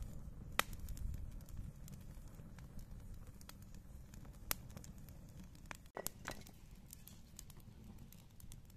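Small fire of burning twigs crackling, with a few sharp pops over a low steady rumble.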